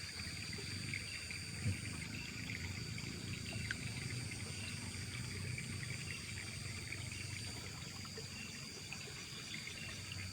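Night insects, crickets among them, trilling in a steady high chorus, over faint low splashing and rustling of shallow water, with a couple of soft knocks about two and four seconds in.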